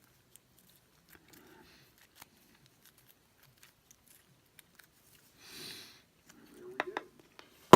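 Small metal clicks and taps from a padlock being handled and worked apart by hand: faint scattered ticks, a brief rustle about five and a half seconds in, then several sharper clicks near the end.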